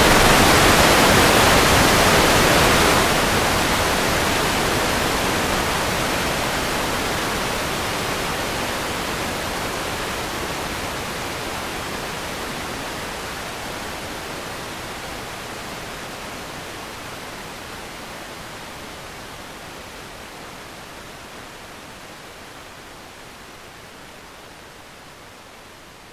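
A loud, even static-like hiss across all pitches, with no tone or rhythm in it, fading steadily throughout.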